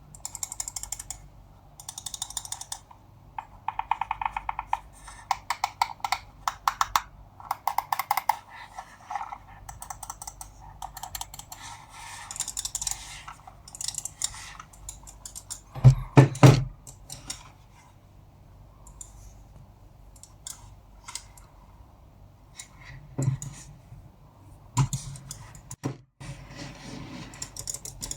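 Razer Pro Click wireless mouse being clicked, with rapid runs of small clicks from its switches and scroll wheel, then scattered single clicks. About halfway through there are a few loud dull knocks.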